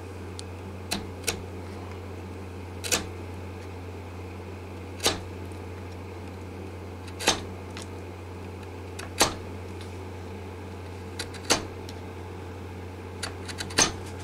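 A 1/4-inch chisel paring old glue and wood from a guitar's neck heel, giving about ten short, sharp scraping clicks spaced irregularly every one to two seconds over a steady low hum.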